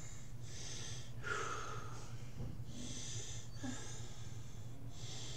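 A man breathing heavily and audibly into the microphone: about five long, hissing breaths in and out, over a steady low hum.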